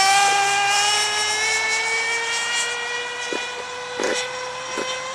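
Small high-revving nitro engine of an RC monster truck buzzing at speed, its pitch creeping slowly upward as it grows fainter while the truck drives away. A few short clicks or knocks come in the second half.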